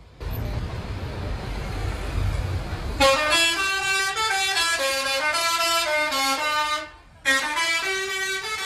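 A bus's telolet horn, a set of air horns switched in sequence, plays a stepping multi-note tune. It comes after about three seconds of low rumbling noise. The tune cuts off abruptly about seven seconds in and starts again a moment later.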